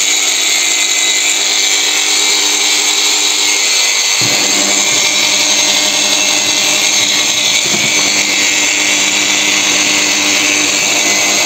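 Pro-Craft angle grinder running free with no load, an abrasive disc spinning on its spindle. It gives a loud, steady, high whine, and its lower hum shifts slightly about four seconds in.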